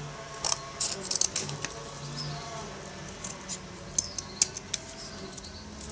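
Scissors snipping through thin cardboard, trimming out a small rough circle: a quick cluster of snips about a second in, then single irregular snips every half second or so.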